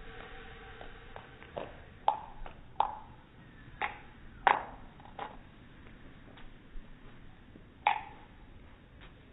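Metal bottle cap batted by a cat, clicking and skittering across paving stones: about seven sharp ticks at irregular intervals, each with a short metallic ping.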